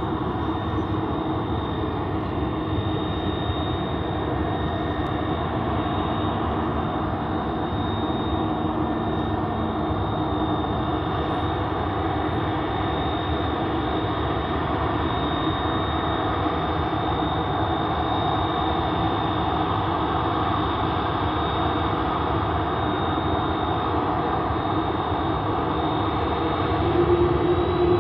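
Jet airliner engines running steadily, a rushing noise with a thin high turbine whine; it grows a little louder near the end.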